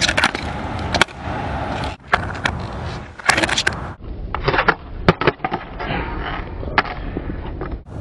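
Skateboard wheels rolling on a concrete sidewalk, broken by several sharp clacks of the board hitting the pavement during trick attempts.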